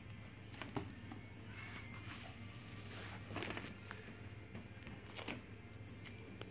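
A Bengal kitten at play: soft scattered clicks and rustles as it scrabbles at a feather wand toy and climbs over denim-clad legs. A steady low hum runs underneath.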